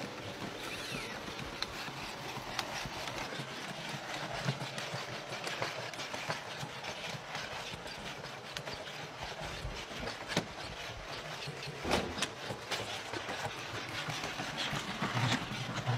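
Boston Dynamics SpotMini quadruped robot walking: a steady hiss from its electric drives under irregular tapping and clicking of its feet on the floor, with one louder knock about three-quarters of the way through.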